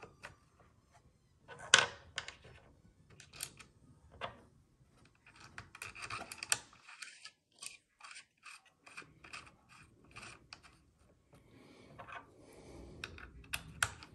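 Small metal clicks, taps and scrapes of a rear sight being taken off and fitted on the top rail of a Kel-Tec KSG shotgun. There is one sharper click about two seconds in and a run of light clicks in the middle.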